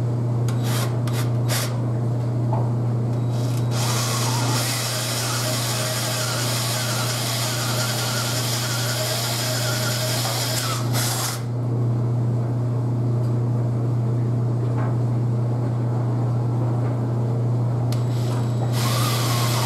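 Cordless drill with a half-inch twist bit boring into a wooden strip: a few short bursts at first, then a long stretch of bit cutting through the wood from about 4 to 11 seconds in, and a shorter burst near the end.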